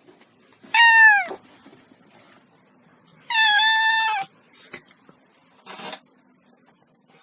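Kitten meowing twice: a short mew falling in pitch about a second in, then a longer, steadier one around the middle, followed by a faint breathy sound near the end.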